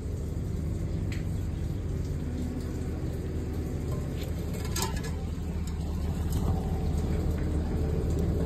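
Steady low rumble of an engine idling, with a faint click or two.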